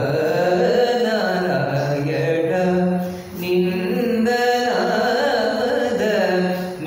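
A man chanting a devotional verse in a sung melody, holding and bending long notes, with a brief pause about three seconds in.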